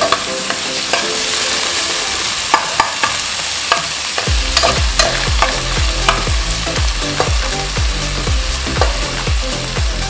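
Onion, garlic, ginger and tomato sautéing in hot oil in a metal pot: a steady sizzle, with a spoon scraping and clicking against the pot as it stirs. A steady low thudding beat comes in about four seconds in.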